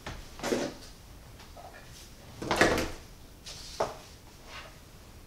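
Three knocks and clunks from a toaster being handled, the loudest about two and a half seconds in.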